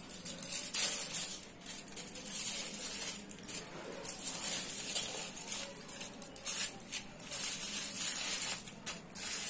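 Aluminium foil crinkling and crackling in irregular rustles as it is folded and pressed by hand around a block of dough.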